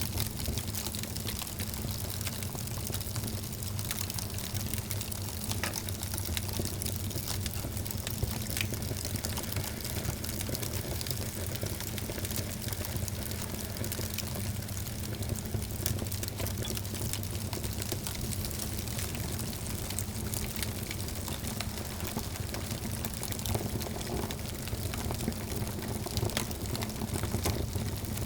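Wood fire burning in a fireplace, a steady low rumble of flames with many small crackles and pops throughout.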